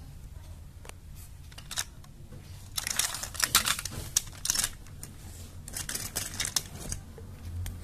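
Hard plastic toys clattering and knocking against each other as a hand rummages through a pile of them: a few single clicks, then two spells of dense rattling, one in the middle and one near the end.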